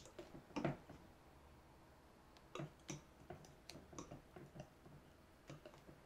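Wire whisk stirring thick cake batter gently in a glass bowl to work in baking powder: faint, irregular light clicks of the wires against the glass, about ten over a few seconds.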